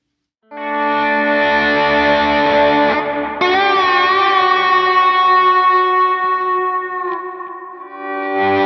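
Telecaster electric guitar on its single-coil pickups played slide through a Line 6 HX Stomp preset: compressor and two stacked low-gain overdrives into a Matchless amp model, with delay and hall reverb, for a sustained lead tone. Long held notes, a new one every few seconds, the second with a wavering slide vibrato.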